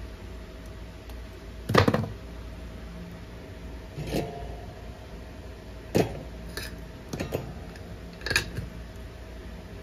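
Tools knocking and clattering on a workbench as the soldering iron is handled in its holder. Five separate knocks are spread through the stretch, the loudest about two seconds in, over a faint steady hum.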